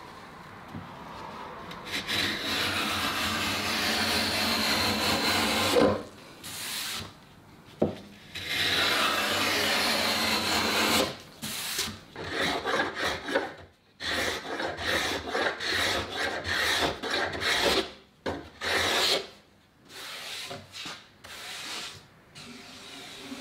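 A hand tool worked along the curved edge of a wooden router template to shape it. First come a few long strokes of several seconds each, then a run of short, quick strokes.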